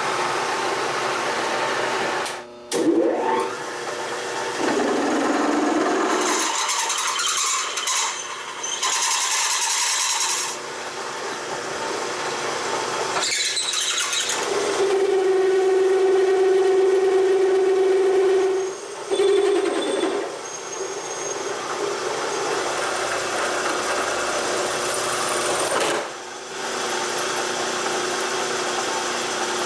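Milling machine spindle running while a hole is drilled and bored in an aluminum block: a steady motor hum with cutting noise that changes from stretch to stretch, briefly dropping out a few times. For about four seconds in the middle a strong steady pitched ring stands out.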